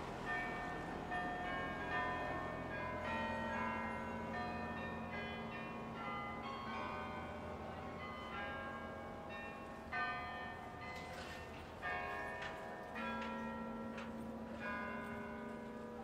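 Westerkerk tower carillon bells playing a tune: struck bell notes at many pitches, each ringing on over the next.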